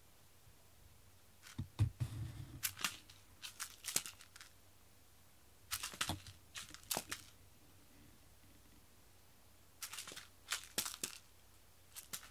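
Three bursts of scratchy rustling and sharp clicks, with a dull thump in the first, from cats playing with a toy mouse on a string over foam play mats.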